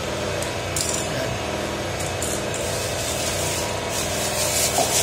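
Small portable generator engine running steadily, heard from inside the house. Over it come short bursts of rubbing and scraping as plastic plug and outlet parts are handled on a tiled floor.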